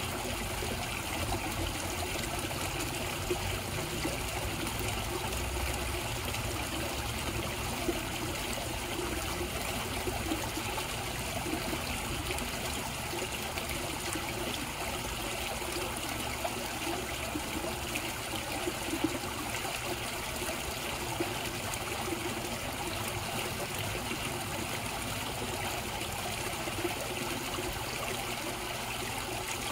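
Koi pond water trickling and running steadily, an even, unbroken sound with a few slightly louder moments.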